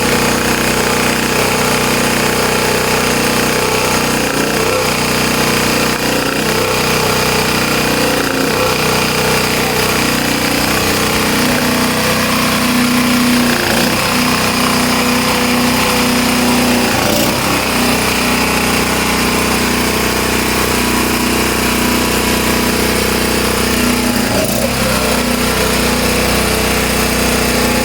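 Portable generator's small gasoline engine running steadily on its newly fitted carburetor.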